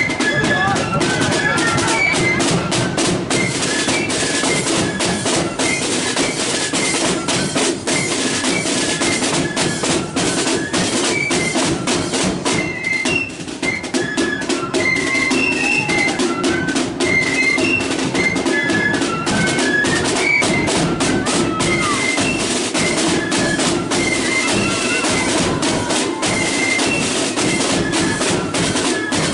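Marching flute band playing a tune: flutes carry a high melody over rapid snare drum strokes and a bass drum.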